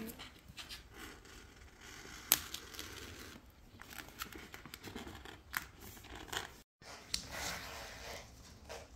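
Scissors cutting a printed aquarium background sheet: short, irregular snips, with one sharp snap about two seconds in.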